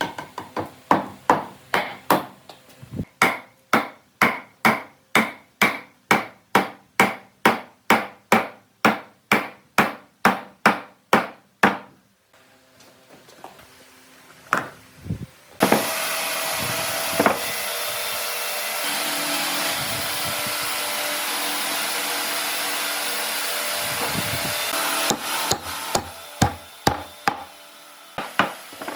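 Hammer blows on wood, struck steadily at about two a second for some twelve seconds. After a pause comes a steady noise of about eight seconds, then a few more blows near the end.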